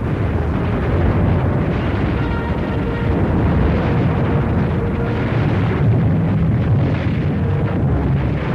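Continuous heavy rumble of bombing and explosions from an old film soundtrack, with no single blast standing out.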